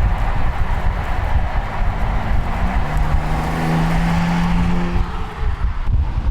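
BMW M4 Competition's twin-turbo 3.0-litre straight-six engine running under a steady low rumble; about two and a half seconds in its note climbs and holds for a couple of seconds, then falls away.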